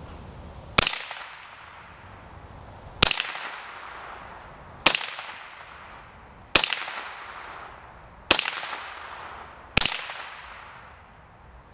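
Remington 597 .22-calibre semi-automatic rifle firing six shots, one every one and a half to two seconds, each sharp crack trailing off in an echo.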